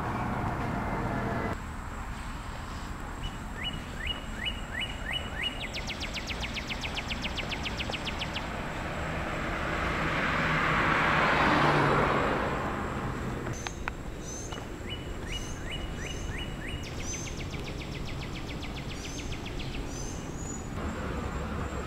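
A car passing on the street, swelling to its loudest about halfway through and then fading. Before and after it, a bird calls in series of short repeated chirps over steady outdoor background noise.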